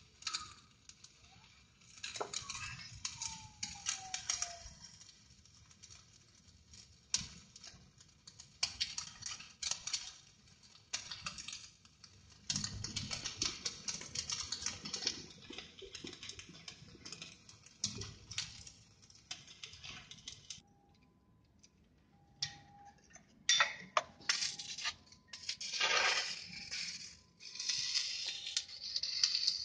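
Stick (shielded metal arc) welding on a steel pipe joint: the arc crackling and sizzling in stretches several seconds long, broken by short pauses.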